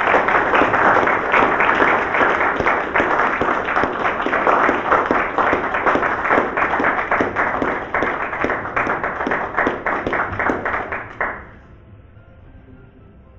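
An audience applauding, many hands clapping together, dying away fairly quickly about eleven seconds in.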